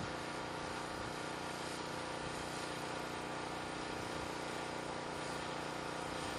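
Mobile crane truck's engine running steadily, a constant drone with a steady hum layered over it while the crane holds a load.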